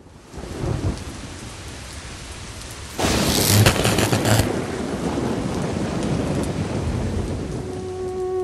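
Thunderstorm: steady rain with a low rumble of thunder under a second in. About three seconds in the sound turns suddenly louder with a crackling burst of thunder, and the heavier rain keeps going after it.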